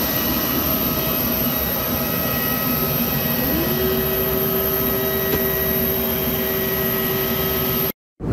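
Jet airliner noise heard at the aircraft's open door: a steady rushing hum with several high whining tones, one of which rises in pitch a little past three seconds in and then holds. The sound cuts off suddenly near the end.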